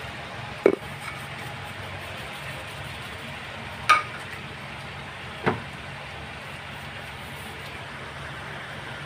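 Pot of chicken caldereta simmering with a steady hiss, broken by three sharp clinks against the pot, about a second, four seconds and five and a half seconds in.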